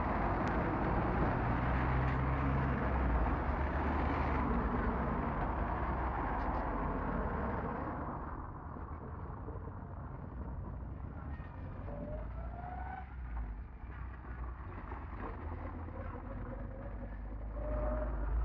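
Road traffic: cars passing close by, loud for the first several seconds, then quieter street noise with a few faint short rising whines in the middle and traffic swelling again near the end.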